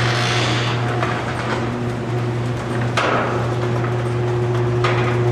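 Overhead garage door opener running as the shop door goes up: a steady motor hum with a few knocks from the door, the loudest about three seconds in.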